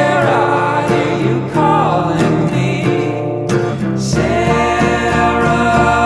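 Recorded song: a man singing over guitar, with the accompaniment growing fuller in the low end about four seconds in.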